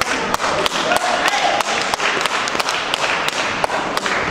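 Spectators in a sports hall clapping in a loose rhythm, about three sharp claps a second, over a murmur of crowd voices.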